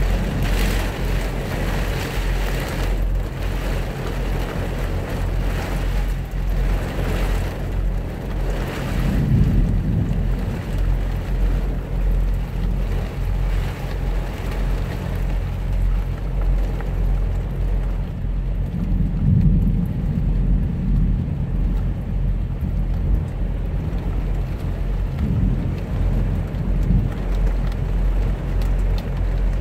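Heavy rain drumming on a truck cab and its windows, with rolling thunder swelling about ten seconds in, again around twenty seconds, and once more near the end. The rain is heaviest in the first several seconds. A steady low hum runs underneath.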